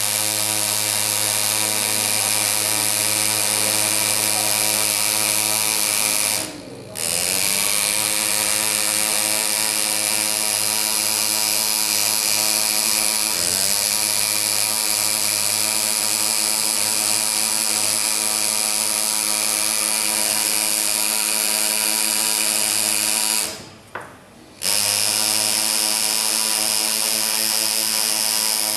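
Pneumatic engraver handpiece driving a graver into a Harley-Davidson engine cover: a steady, pitched machine buzz as the outline is cut. It stops briefly twice, about a quarter of the way in and again near the end, then starts up again.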